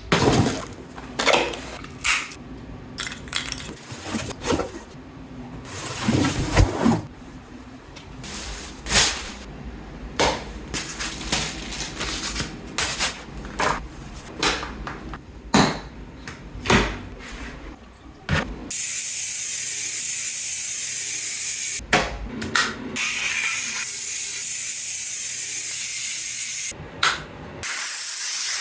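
A run of separate clicks and knocks, then, from about two-thirds of the way in, the steady hiss of steam from a Shark steam cleaner, cut off briefly twice.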